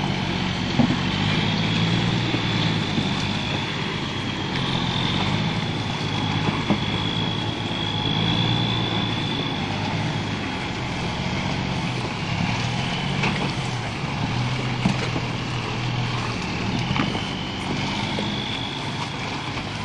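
A heavy logging truck's diesel engine running steadily, a low even drone with a thin high whine riding over it.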